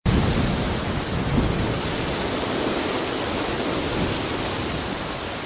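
Steady rain with a low rumble underneath, a little louder in the first second.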